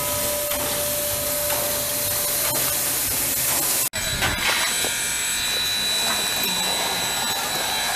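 Steam locomotive hissing steam, a loud, even hiss with a few steady tones in it. It cuts off abruptly about four seconds in. A different steady mechanical noise with a thin high whine follows.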